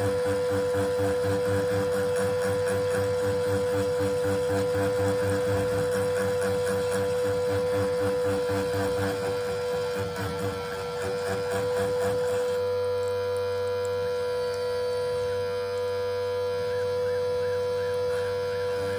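A small CNC router's 300 W spindle whining steadily at about 21,000 rpm as a 1 mm two-flute end mill cuts a groove under coolant. A lower rhythmic rattle of the cut sounds underneath and fades about two-thirds of the way through, leaving a cleaner whine.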